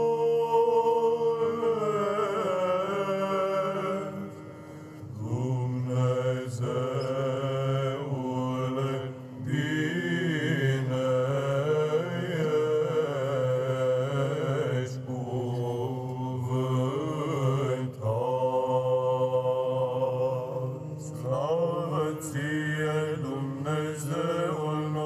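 Male choir of psalts singing Byzantine chant in Romanian, the melody moving above a steady held low drone (the ison). There is a short breath pause about five seconds in.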